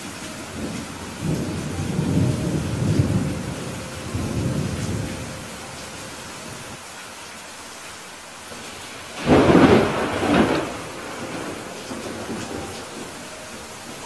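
Steady rain falling, with thunder: a low rumble a second or so in that rolls on for a few seconds, then a louder, sharper thunderclap about nine seconds in that peaks twice.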